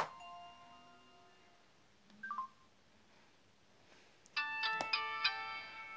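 Flip phones being shut one after another: a flip snaps closed with a sharp click as an electronic tune dies away. About two seconds in comes a short two-note electronic beep, then from about four and a half seconds in a bright electronic chime melody from a flip phone, with clicks of the handset being handled during it.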